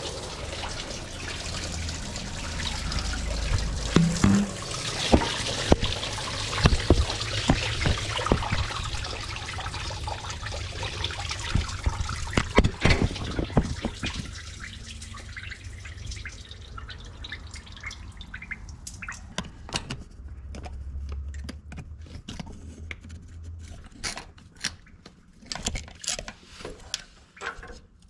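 Engine coolant gushing out of an opened freeze-plug hole in the engine block and splashing into a drain pan, with sharp metal taps of tools at the plug; the block still holds coolant although the radiator is drained. The flow dies down after about sixteen seconds, leaving scattered metal clicks.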